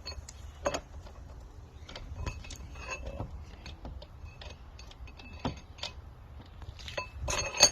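Scattered metallic clicks and clinks of a chisel and the tool-holder latch being handled while the chisel is fitted into an electric jackhammer, with a quick run of louder clicks near the end.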